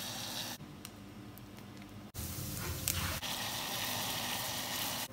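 Water heating to a simmer in a steel pot on a gas stove: a steady hiss that drops off about half a second in and comes back louder from about two seconds in.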